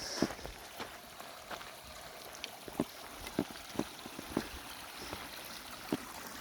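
Spring water running in a steady rush, with short irregular gurgling plops about every half second to a second.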